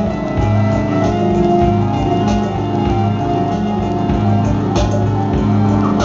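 Live band playing keyboards and drums: sustained low keyboard notes shift in a repeating pattern over a steady kick-drum pulse, with a few sharp drum or cymbal hits.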